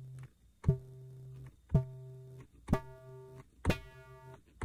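YM3812 (OPL2) FM sound chip playing the same low note four times, about once a second, each with a sharp plucked attack, a held tone and a clean cutoff. The tone gets brighter note by note as the modulating operator's level is changed in FM synthesis mode.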